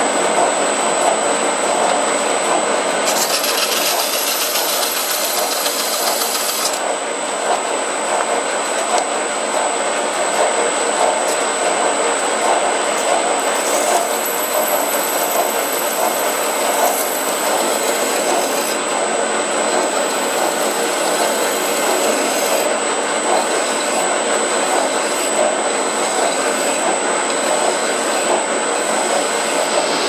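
Small metal lathe running steadily with a brass workpiece spinning in its chuck, with a constant high whine over the motor and gear noise. Twice, a higher hissing comes and goes as the brass is worked while it spins.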